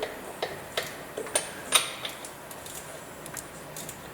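Ratchet wrench clicking in short, irregular strokes: a run of sharp metallic clicks, loudest in the first two seconds, then fainter ticks.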